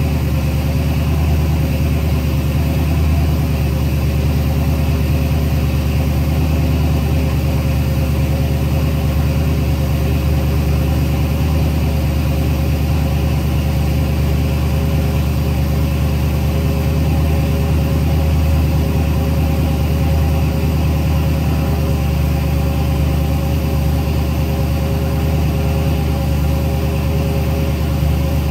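1973 Ford Bronco engine, fed by a freshly installed Holley Sniper 2 throttle-body fuel injection system, idling steadily.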